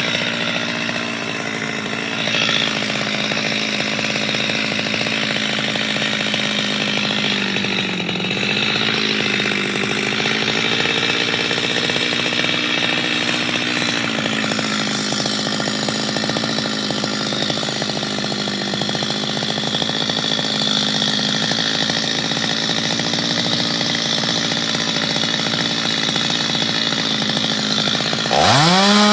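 Chainsaw engine running steadily while cutting mango wood. Its pitch sags as the chain bites under load, then it revs up sharply near the end.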